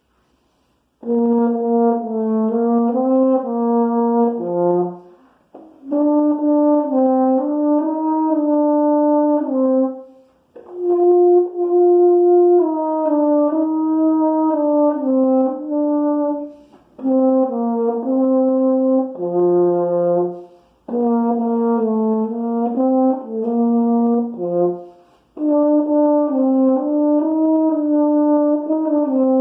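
Euphonium playing a solo melody in several short phrases, with brief pauses for breath between them.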